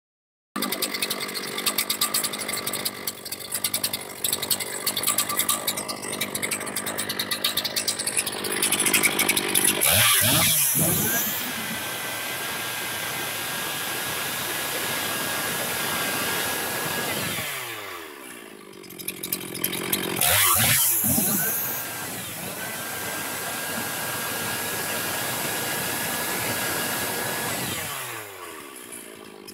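Stihl MS 460 Magnum two-stroke chainsaw idling with a rapid even beat, then revved up to full throttle about nine seconds in and held there for several seconds. It drops back toward idle, is revved and held at full throttle a second time, and drops again near the end.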